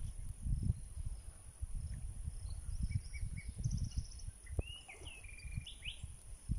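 Wind buffeting the microphone in low, uneven gusts, with birds calling over it: a few short chirps and a quick trill, then several slurred whistled notes in the second half. A steady high insect drone runs beneath.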